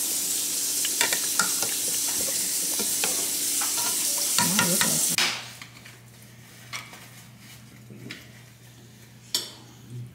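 Oxtail sizzling in a cooking pot as it is stirred, with scattered clicks and scrapes of the spoon. About five seconds in, the sizzling cuts off suddenly, leaving a quiet low hum and a few faint clicks.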